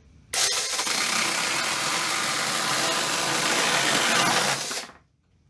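Mini cordless chainsaw, battery-powered with a brushed motor, cutting through a wooden board: a steady buzz of motor and chain biting into the wood with a thin high whine. It starts about a third of a second in and cuts off sharply near the end as the cut is finished.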